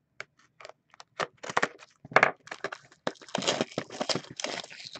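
Cardboard trading-card boxes and their packaging being slid aside and handled on a table: a few sharp clicks and knocks, then from about a second and a half in a dense run of scraping and rustling.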